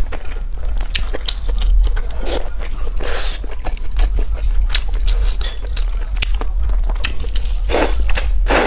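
Close-miked biting and chewing of food: many small crisp clicks, with a louder noisy burst about three seconds in and several more near the end, over a steady low hum.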